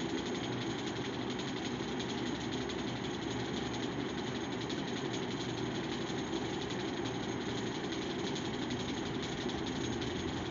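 Steady mechanical hum with a faint, fast rattle in it, running evenly without change.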